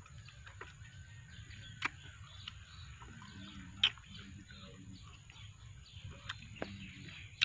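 Mouth sounds of someone eating Java plums (duhat): chewing, with three sharp wet clicks or smacks, the loudest about halfway through.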